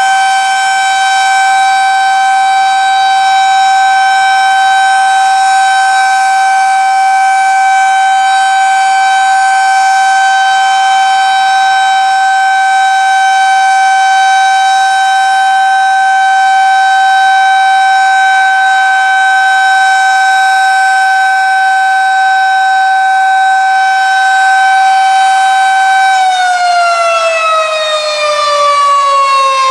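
Federal Signal 2001-130 outdoor warning siren sounding a steady alert tone, one loud held pitch, then beginning to wind down in a falling glide near the end.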